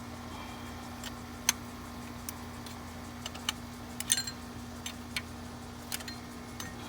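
Scattered light metallic clicks and taps from hand tools working on an engine's fuel-line fittings, coming irregularly about once a second over a steady low hum.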